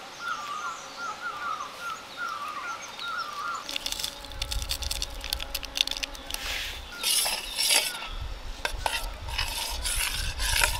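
A spoon clinking and scraping in a metal camp cup as coffee is poured and stirred, in a run of sharp clicks. Before it, for the first few seconds, a bird repeats a short chirping phrase. Low gusts of wind rumble on the microphone in two spells.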